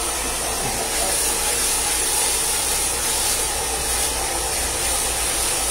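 Handheld hair dryer blowing steadily at close range: a constant rushing hiss of air that does not change.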